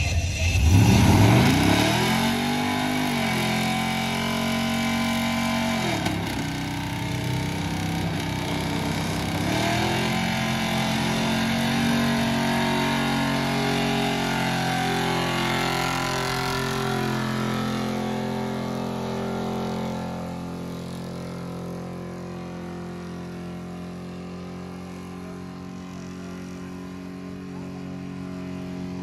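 Lifted 1970s Ford pickup doing a burnout: the engine revs up hard, drops and climbs again twice, then is held at high revs while the rear tyres spin. The engine note eases off in the last third.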